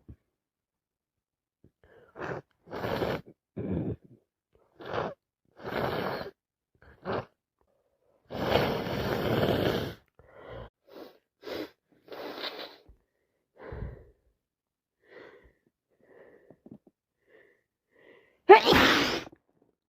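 A person with a cold sniffling and breathing in short bursts, blowing their nose for about two seconds around the middle, then giving one loud sneeze near the end.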